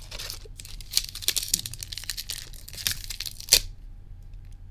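Foil Pokémon card booster pack wrapper crinkling and tearing as it is handled and ripped open, with a sharp crack about three and a half seconds in.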